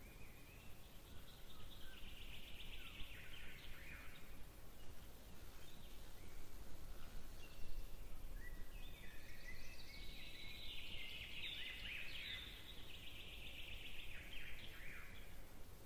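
Woodland ambience: songbirds singing in rapid trills and chirps, a short phrase a couple of seconds in and a longer, louder bout in the second half, over a faint steady low rumble.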